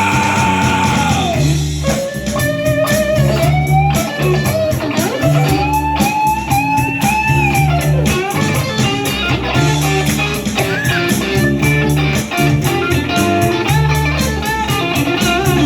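Instrumental break of a soul/blues-rock band: an electric lead guitar playing bending, sliding notes over bass guitar and a steady beat.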